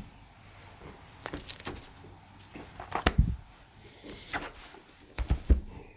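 A handful of scattered knocks and clicks from objects being handled, with heavier thumps about three seconds in and again near the end.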